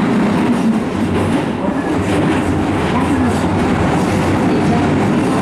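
Keisei 3000 series electric commuter train running at speed, heard from inside the passenger car: steady noise of wheels on rails.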